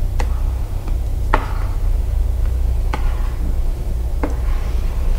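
Plastic squeegee working a vinyl decal onto an ATV's plastic fender: about four strokes, each opening with a sharp click and trailing off in a soft scrape. A steady low hum runs underneath.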